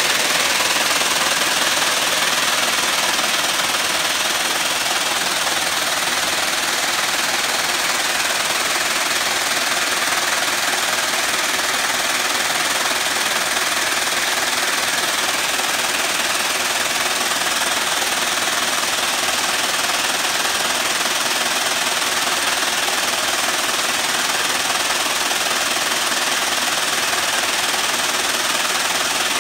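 48-spindle tubular cord braiding machine running: a steady, rapid, dense clatter from its bobbin carriers travelling around the track.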